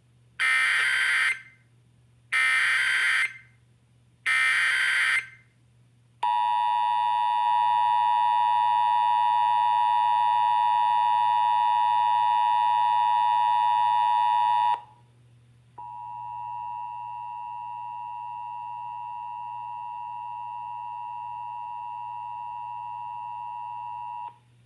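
Emergency Alert System test tones: three short SAME header data bursts about two seconds apart, then the loud steady two-tone EAS attention signal for about eight seconds. After a brief gap comes a second, quieter steady tone for about eight seconds, which stops near the end.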